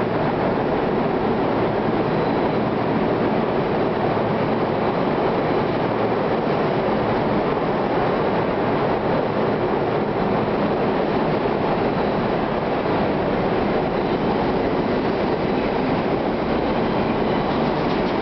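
R32 subway train rolling steadily past a station platform, a continuous loud rumble of wheels and running gear that holds even throughout.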